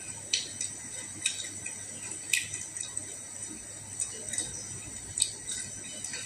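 Eating fried fish and rice by hand: sharp, irregular clicks and smacks roughly once a second, from fingers picking at the fish on a glass plate and from mouth sounds while chewing.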